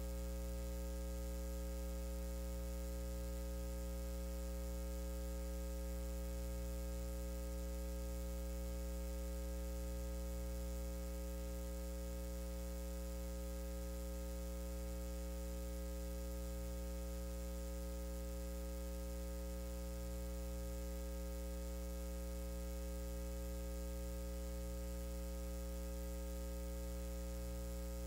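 Steady, unchanging electrical mains hum, low and buzzy, with no other sound standing out.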